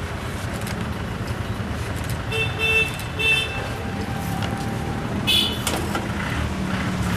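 Street traffic rumbling steadily, with vehicle horns honking: two short beeps about two and a half seconds in, and another brief, higher honk about five seconds in.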